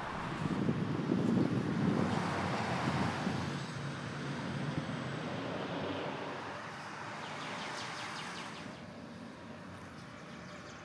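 Outdoor background rumble of distant road traffic, loudest in the first few seconds and then easing off, with a few faint clicks near the end.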